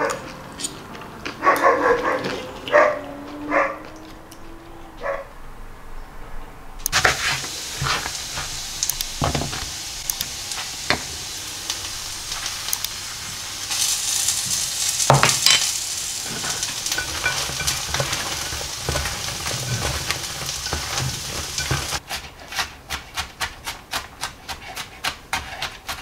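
A steady hiss with scattered clicks and taps, then, near the end, a kitchen knife chopping garlic on a wooden board in quick, even strokes, about four a second.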